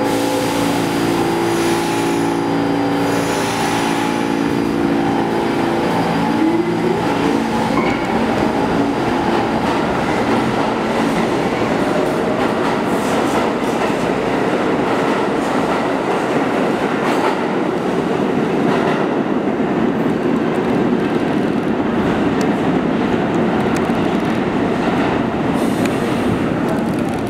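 NYC Subway G train standing at the platform with a steady electrical hum, then pulling out about six seconds in with a rising propulsion whine. The whine gives way to a loud, continuous rumble and clatter of wheels on rails as the cars run past and into the tunnel.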